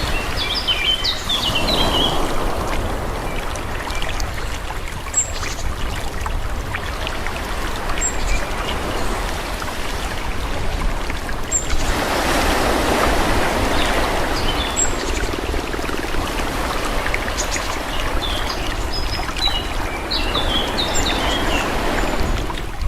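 Gentle waves on a calm sea washing in and out, with a swell near the start and another about twelve seconds in. Small birds chirp over the water near the start and through the second half.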